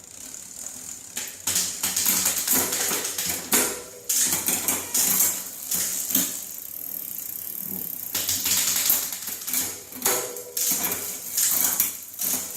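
Bicycle drivetrain turning with the rear wheel spinning: the chain runs over the rear sprockets and derailleur with a busy, irregular rattling and clicking.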